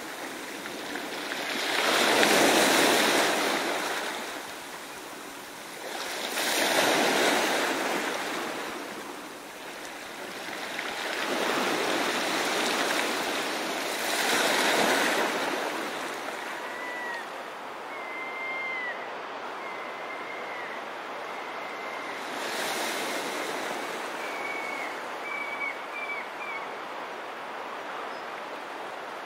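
Ocean surf breaking on a beach, the wash swelling and falling away every few seconds, easing to a steadier lower rush in the second half. Faint high, short bird calls come in a series during the second half.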